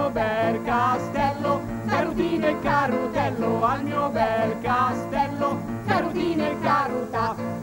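Livornese folk song performed live: women's voices singing in a lively, sing-song style, accompanied by acoustic guitar and piano.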